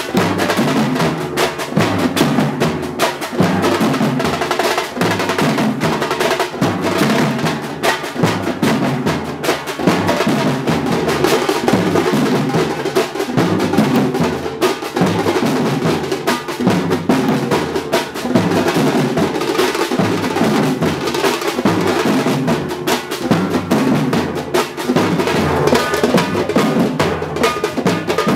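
Samba batucada percussion ensemble playing together: deep surdo bass drums struck with sticks and mallets along with other drums, a loud, dense, steady rhythm.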